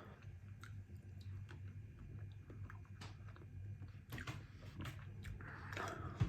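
Close-miked chewing and wet mouth sounds of someone eating, with scattered small clicks and smacks over a low steady hum.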